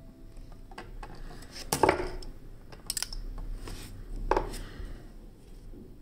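Flush cutters snipping thin wire: two sharp metallic snips, about two seconds in and again about four and a half seconds in, each with a brief ring, and a lighter double click between them.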